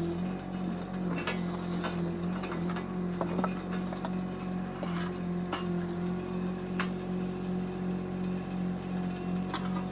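Shanding 1-ton mini excavator's small Kubota diesel engine running steadily, with an even low pulsing hum, and scattered light clicks and knocks from the machine working.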